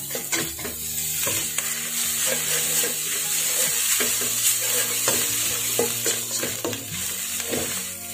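Instant noodles, shrimp and Chinese kale being stir-fried in a wok: a spatula scraping and tossing against the pan, over a steady sizzle.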